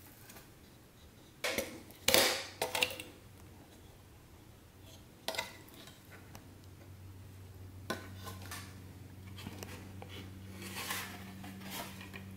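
Clattering and clinking of TV parts being handled and set down as flat-screen LCD/LED TVs are taken apart, in several short bursts. A low steady hum starts about seven seconds in.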